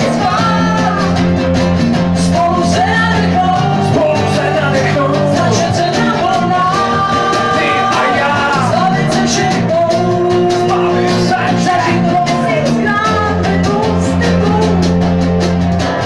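Live acoustic band: male and female voices singing over strummed acoustic guitars.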